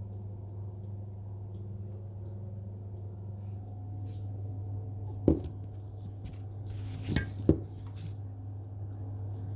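Kitchen utensil knocking and clinking against a dish while lasagna sauce is spread: faint scattered taps, one sharp knock about five seconds in, then two more close together a couple of seconds later. A steady hum runs underneath.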